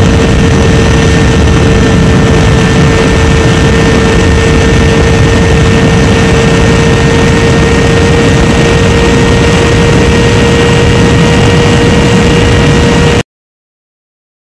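Suzuki GSX-R600's inline-four engine held at steady revs while riding at speed, under heavy wind noise on the microphone. The sound cuts off suddenly to silence about a second before the end.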